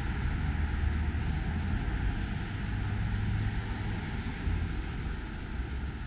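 Steady road traffic noise from cars passing on the adjacent street, a constant wash with a low rumble.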